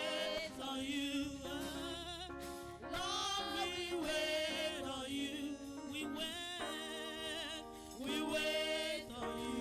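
Gospel song: voices singing long held notes with vibrato over sustained instrumental chords.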